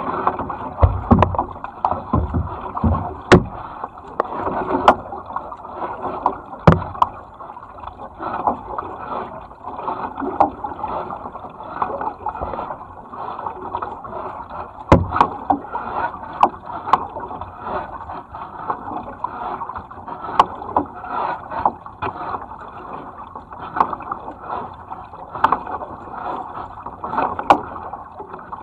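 Double-bladed kayak paddle stroking through the water, steady splashing and dripping from the blades with many short sharp knocks and clicks.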